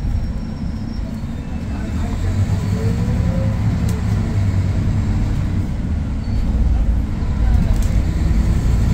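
Scania K230UB single-deck bus under way, its engine and running gear giving a steady low rumble, with a faint whine rising about two to three seconds in as it picks up speed.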